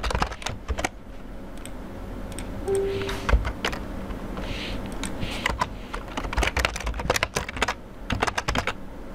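Typing on a computer keyboard: rapid key clicks in a burst at the start and another near the end, with scattered single keystrokes and one louder click in between.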